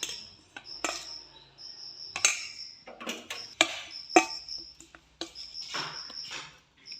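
Irregular knocks and clinks of kitchen utensils and dishes, about a dozen sharp hits spread over the seconds, with a faint high-pitched tone coming and going behind them.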